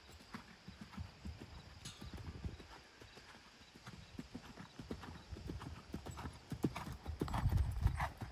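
Hoofbeats of a ridden horse on sand arena footing: a rhythmic run of low thuds as it canters and then trots, loudest near the end.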